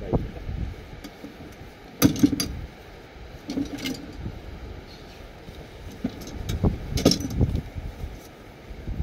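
Clinking, rattling handling noise over a low rumble, with a few sharper jangling bursts about two, four and seven seconds in.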